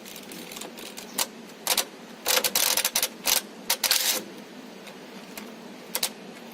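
Impact wrench fired in several short rattling bursts on the bolts of an excavator hydraulic pump, with sharp metallic clanks between them.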